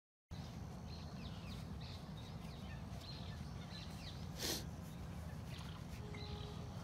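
Outdoor ambience with a steady low rumble of wind on the microphone and many small bird chirps, starting abruptly after a moment of silence. A single short, sharp noise stands out about halfway through.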